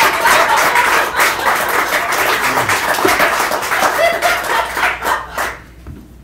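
Audience applauding and cheering at the end of a song, the clapping dying away about five seconds in.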